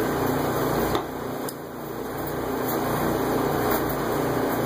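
Steady mechanical hum of a motor or fan running in the room, dipping briefly about a second in, with a couple of light clicks as small metal strut parts are handled.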